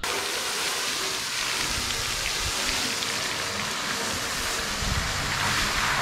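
Pressure washer (water blaster) spraying a jet of water onto a tractor's mud-caked loader bucket: a steady hiss of spray, with a faint steady hum underneath.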